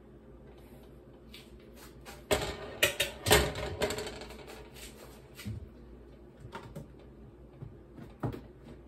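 Glass pot lid clattering as it is set down on the stovetop, a quick run of sharp clicks and knocks about two to four seconds in, followed by a few lighter single knocks of kitchenware over a faint steady hum.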